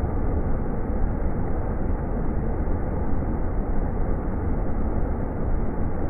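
Small waterfall pouring into a rock pool: a steady, dull rush of falling water, heavy in the low end.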